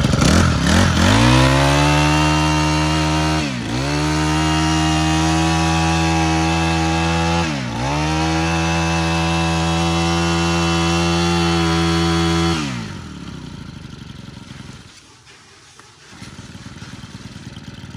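Honda GX25 25cc four-stroke brush cutter engine revving up to high speed and held at full throttle. The revs drop briefly twice, about 3.5 and 8 seconds in, then the engine falls away about 12.5 seconds in.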